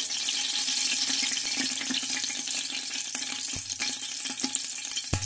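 Old cooking oil heating in a large stainless steel pot, giving a steady sizzling hiss, with a few light knocks in the second half.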